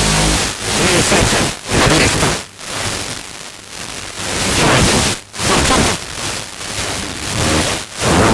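FM receiver tuned to 87.8 MHz giving loud static hiss, with a weak distant signal fading in and out under it. There are sharp drop-outs every second or so. This is typical of marginal long-distance sporadic-E reception.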